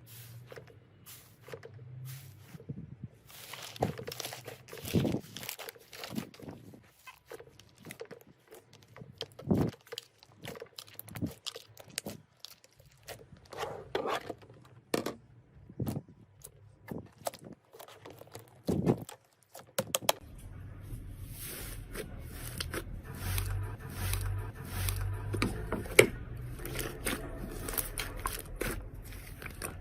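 Slime being squeezed, stretched and poked by hand, with irregular sticky crackles, pops and tearing sounds. About twenty seconds in it changes to denser, steady crackling over a low hum.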